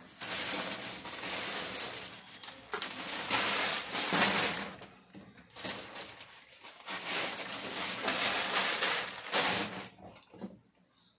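Plastic packaging bags crinkling and rustling as they are handled, in long stretches with a short pause about five seconds in, dying away near the end.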